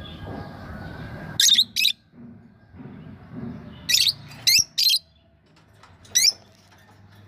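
Lovebirds giving short, sharp, high-pitched chirps: two about a second and a half in, three more in quick succession around four to five seconds in, and one more near the end, over a low rumbling background.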